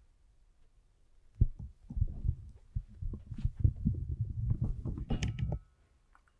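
Irregular knocks and thumps of things being handled at a wooden lectern, picked up close by its microphone. They start about a second and a half in and stop shortly before the end, with a few sharper clicks near the end.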